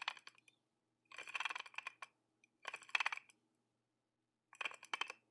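Three short bursts of rapid light clicking and clattering, each under a second long, spaced a second or more apart over a faint low hum.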